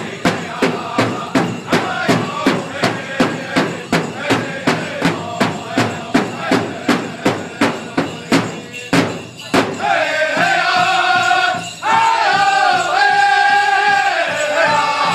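Powwow drum group: singers strike a large shared drum in a steady beat, about three strokes a second, and sing over it. About nine and a half seconds in the drum stops and the voices carry on alone in long, high held notes.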